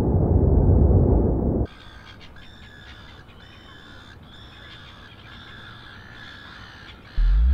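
A loud, deep rumble cuts off abruptly after about a second and a half. Quiet outdoor ambience follows with birds chirping over and over. Near the end a low thud and a rising tone start.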